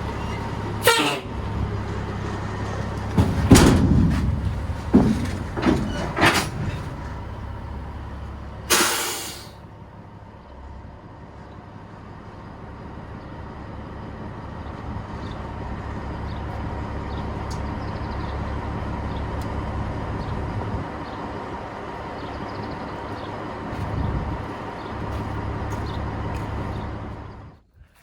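Peterbilt semi truck's diesel engine idling steadily, with metallic knocks and clanks and a short hissing burst in the first ten seconds as the grain trailer is hooked up. The idle stops suddenly shortly before the end.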